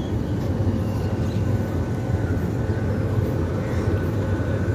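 GEU-20 class diesel-electric locomotive idling at a standstill: a steady low engine rumble.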